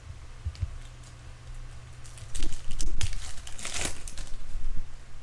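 Foil trading-card pack wrapper crinkling and tearing as it is opened by hand, a rough crackle that starts about two seconds in and is loudest just before the end, after a couple of small clicks.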